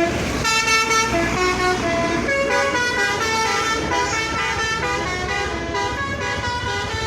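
Bus 'telolet' musical air horn, a Basuri multi-trumpet set, playing a tune: several horn tones sounding together and stepping from note to note every half second or so.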